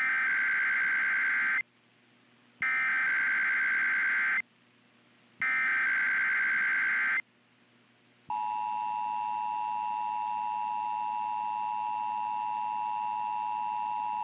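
Emergency Alert System header tones: three bursts of buzzy digital data tones, each under two seconds with about a second's gap between them, then, about eight seconds in, the steady two-tone EAS attention signal (853 and 960 Hz sounding together). Together they announce that an alert or test message follows.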